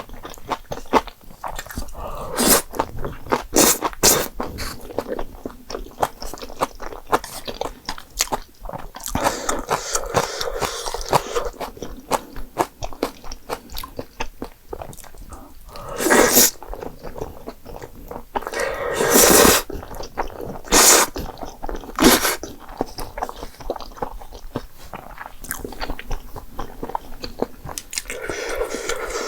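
Close-miked eating sounds of someone working through jjapagetti noodles and spicy green onion kimchi: steady chewing and crunching with wet mouth clicks, broken by a few louder, longer bursts.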